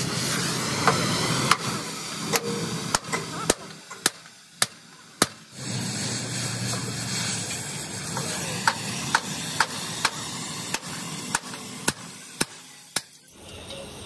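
Hammer striking steel: a run of sharp blows about two a second, a pause of a few seconds, then another run, over a steady low hum.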